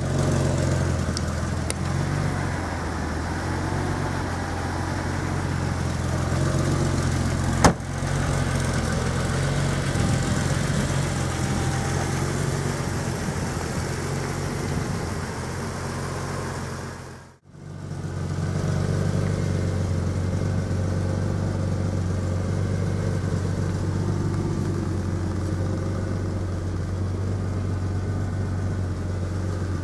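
Ferrari 412's V12 engine idling steadily, with one sharp click about eight seconds in. The sound cuts out briefly near the middle and then the idle resumes.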